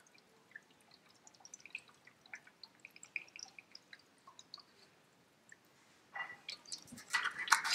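Water poured from a plastic bottle through a net-pot hole into the tank of a small deep-water-culture hydroponic unit, heard as faint, irregular drips and small splashes. A louder noise comes in about six seconds in.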